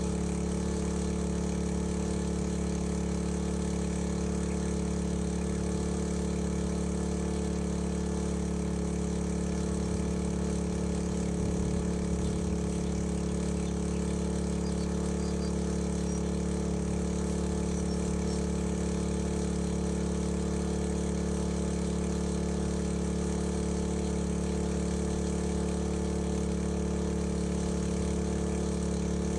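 Small petrol engine of a fire-fighting water pump running steadily at a constant speed.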